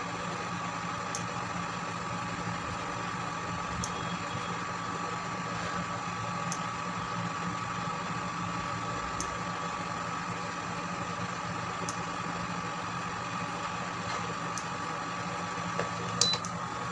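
Induction cooktop running on a low setting: a steady fan hum with a faint tick about every two and a half seconds, and a couple of clicks with a short beep near the end.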